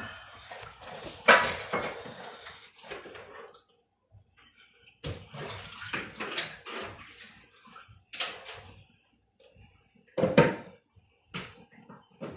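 Water from a kitchen sink tap running in stop-start spells, with dishes and utensils clattering in the sink. The loudest clatter comes about a second in.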